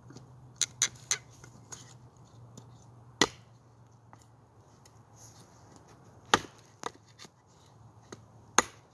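A Bobcat kukri bowie knife chopping into a split board of wood: sharp, irregular thwacks of the blade biting in, a cluster of lighter strikes in the first two seconds and three heavy ones about a third of the way in, two-thirds in and near the end.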